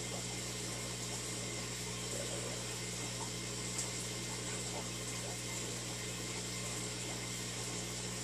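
Aquarium filter pump running with a steady hum and a constant wash of moving water.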